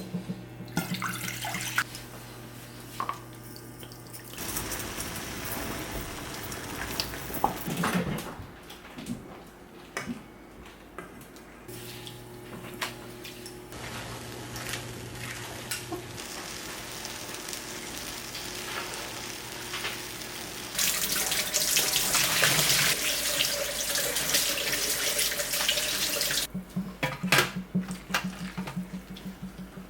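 Water from a kitchen tap running into a sink, with scattered clicks and knocks of things being handled. The stream is loudest for about five seconds, two-thirds of the way through.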